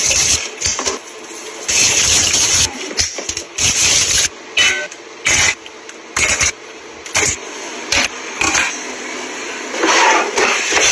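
Water from a kitchen tap splashing in irregular bursts into a metal sink and over live crabs' shells, with short knocks in between. Near the end a drawer slides open.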